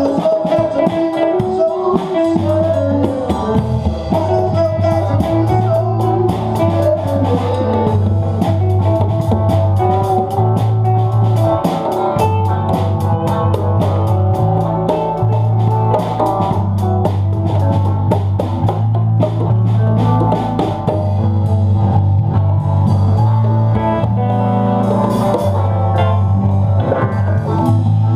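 Rock-blues band music with electric guitar, bass and drum kit playing an instrumental stretch, recorded with poor sound quality.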